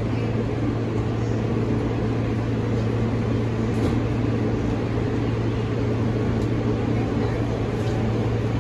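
Steady hum and rumble inside an R160 subway car standing with its doors closed, a constant low drone over an even noise.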